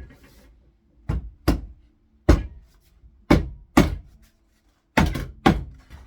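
Glued, biscuit-jointed wooden sections being knocked together to seat the joint: seven sharp knocks on wood, mostly in pairs about half a second apart.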